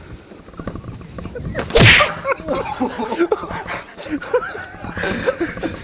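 A boxing glove punch landing with one loud, sharp smack about two seconds in, followed by short bits of voices.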